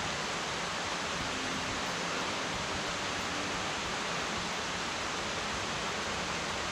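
Steady, even rush of a waterfall's falling water, unchanging throughout.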